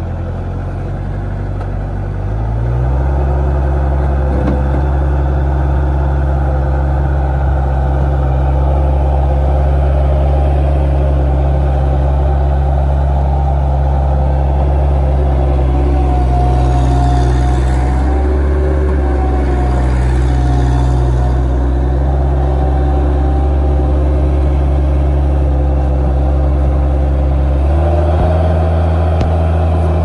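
Bobcat 753 skid steer's diesel engine running steadily, throttled up about two and a half seconds in. A higher whine wavers through the middle, and near the end the engine note changes as the loader arms lift and the bucket tips.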